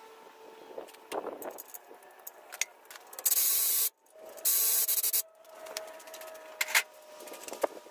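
Two short hisses of an aerosol can spraying, each lasting under a second and about half a second apart, with light clinks of tools on metal.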